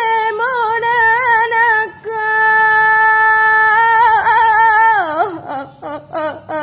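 A woman singing lagam Alas, the traditional melismatic vocal style of the Alas people of Southeast Aceh, with no accompaniment. She sings a wavering, ornamented line, holds one long steady note about two seconds in, slides down in a slow glide around the four-second mark, and ends with short broken phrases.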